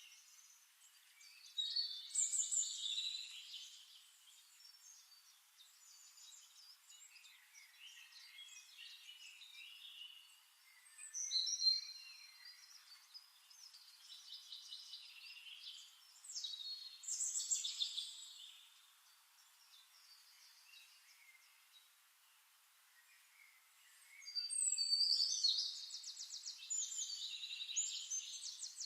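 Songbirds singing: separate phrases of chirps and warbles a few seconds apart, with a longer rapid trill near the end.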